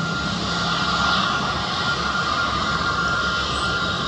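Airbus A320neo's Pratt & Whitney PW1100G geared turbofans running at taxi power as the airliner rolls along the runway: a steady jet rumble with a thin, constant whine.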